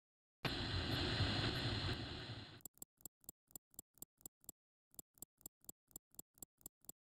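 After a moment of silence, a loud, even rush of noise lasts about two seconds and stops abruptly. It gives way to a rapid, regular ticking, about four ticks a second, which breaks off briefly and then resumes.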